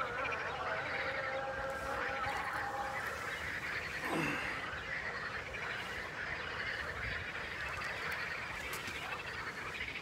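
A dense, continuous chorus of frogs croaking. A chanted call to prayer carries on faintly for the first few seconds, then fades out.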